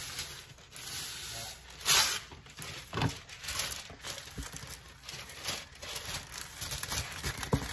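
Plastic wrapping and an insulated bag crinkling and rustling as they are handled by hand, with louder crackles about two and three seconds in.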